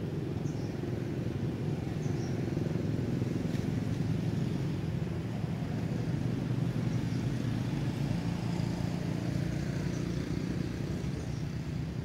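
A steady low rumble, with a few faint short high squeaks now and then.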